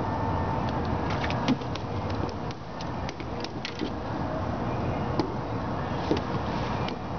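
A scatter of sharp taps and clicks as a caught ladyfish is unhooked on wooden dock boards, over a steady low rumble.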